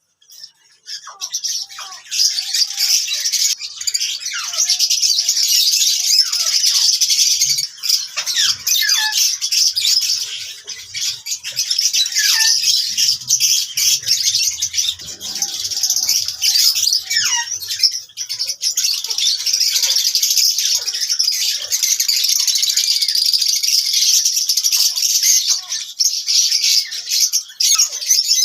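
Many love birds (small parrots) chattering and chirping without a break, with a dense mix of high squawks and quick sliding chirps.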